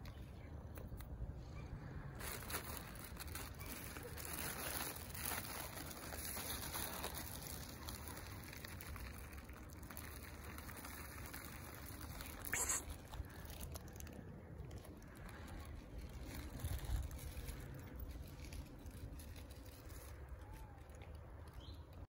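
Faint outdoor street background noise, steady throughout, with a single sharp click about halfway through and a low thump a few seconds later.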